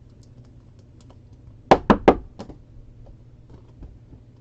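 Three sharp taps in quick succession about two seconds in, then a softer fourth and a few faint ticks, over a faint low hum.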